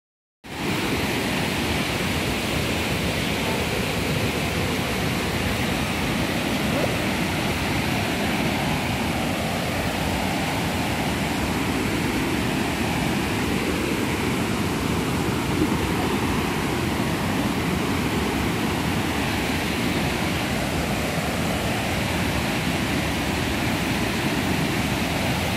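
Steady rush of water pouring over a low waterfall into a river pool.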